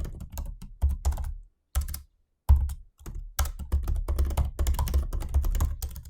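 Fast typing on a MacBook Pro 16-inch 2020 laptop keyboard: rapid runs of key clicks, broken twice by short pauses.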